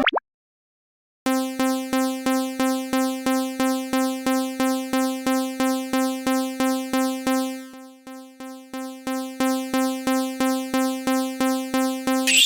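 Japanese railroad crossing warning bell ringing "kan-kan" in an even, steady rhythm of nearly three strikes a second. It starts about a second in, fades away briefly around eight seconds in, then returns to full strength.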